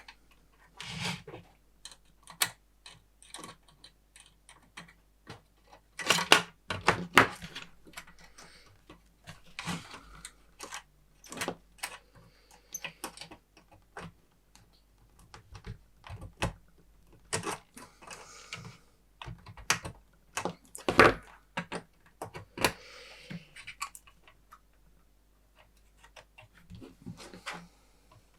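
Irregular clicks, knocks and light metallic clatter from hands handling small tools and parts while working on an oscilloscope, with a denser run of knocks about six seconds in and a sharp knock about twenty-one seconds in.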